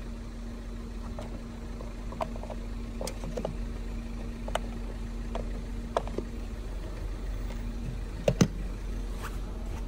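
Light plastic clicks and rubbing as the cover cap of a Tata Nexon EV's CCS2 charging inlet is handled and pressed back on. Then two sharper clicks come about eight seconds in as the charge-port flap is shut. A steady low hum runs underneath.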